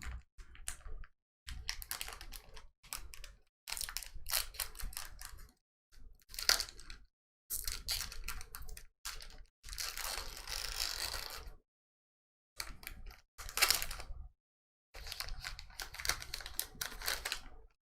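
Foil booster pack wrapper of Pokémon trading cards crinkling and being torn open, with the cards handled, in about a dozen short bursts that cut off sharply into silence between them.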